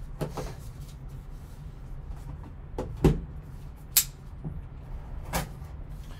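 Sealed cardboard trading-card hobby box being handled by gloved hands, with a few sharp knocks and taps as it is turned and set against the table. The loudest knocks come about three and four seconds in, with another near the end.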